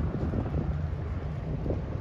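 Wind buffeting the microphone: an uneven, gusty low rumble.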